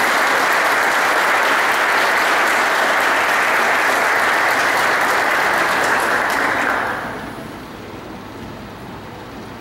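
Audience applauding, steady and loud, then dying away about seven seconds in.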